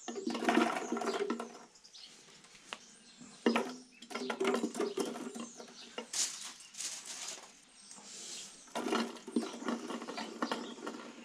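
Plastic bio balls clattering against each other and the glass as handfuls are placed into a glass sump filter tank, in about four bursts of rattling.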